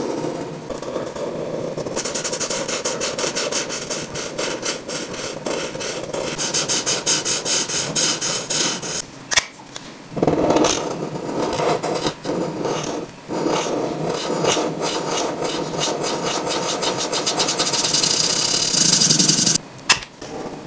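The felt tip of an alcohol-based Touch twin marker scratching across paper in rapid back-and-forth colouring strokes, filling in a shape. There are two sharp clicks, one about halfway through and one near the end.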